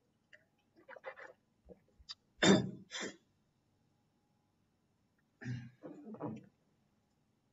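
A person clearing their throat and coughing: a loud double burst about two and a half seconds in, and a shorter cluster a few seconds later.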